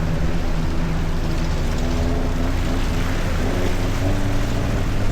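Off-road vehicle's engine running steadily at low revs, with a steady hum of several low tones.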